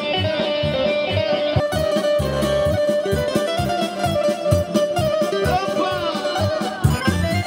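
Live kolo dance music played on an electronic keyboard through PA speakers: a plucked-string-like melody over a steady, fast bass-and-drum beat, with bending notes near the end.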